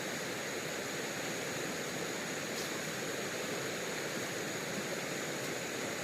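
Steady rushing outdoor riverside ambience, even and unbroken, with a thin high steady tone above it and a faint click about two and a half seconds in.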